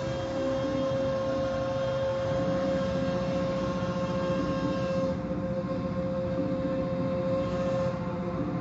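Automatic tunnel car wash heard from inside the car: a steady machine hum with a held tone as the cloth curtains and brushes work over the car, with a fast rhythmic flutter coming in a couple of seconds in.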